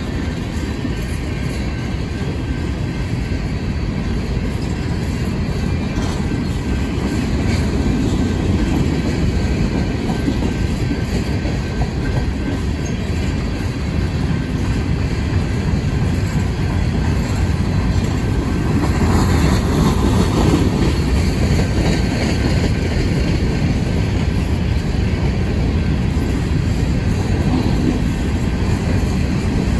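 Empty coal hopper cars of a long freight train rolling past at steady speed, their wheels rumbling and clattering on the rails. The sound swells a little about two-thirds of the way through.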